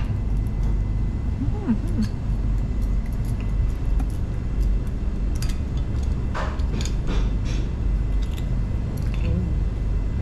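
Steady low rumble of restaurant room noise, with a few faint clicks and squeaks as a corkscrew is worked into a wine bottle and the cork is drawn, most of them about six to seven and a half seconds in.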